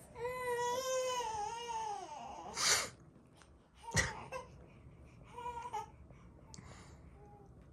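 A person's sneeze: a long, wavering, voiced "aaah" build-up that falls at the end, then the loud sneeze itself. It is followed by a sharp click and a short voiced cry a couple of seconds later.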